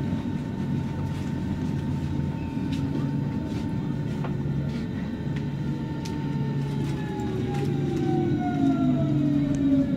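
Berlin S-Bahn electric train heard from inside the carriage: the traction motors' whine holds steady over a rolling rumble with a few clicks from the wheels, then falls in pitch over the last few seconds as the train brakes into a station.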